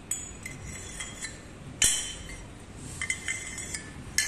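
Black metal tubes of a foldable pull-up station clinking against each other and the tile floor as they are handled: a series of sharp metallic clinks with a short ring, the loudest about two seconds in.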